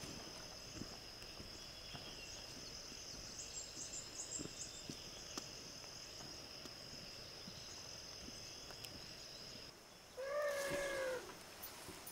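A steady, high-pitched insect drone, as of cicadas or crickets, with a few faint high chirps; it cuts off about ten seconds in. Just after, a single pitched animal call about a second long.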